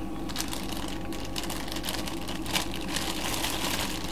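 Chicken breast being rolled around in dry breadcrumbs: soft, irregular crunching and scratching, with one sharper crackle about two and a half seconds in, over a steady low hum.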